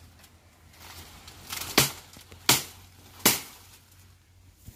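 Three sharp knocks, about three-quarters of a second apart, of blows among dry palm-frond stalks, with a few fainter ticks before and after.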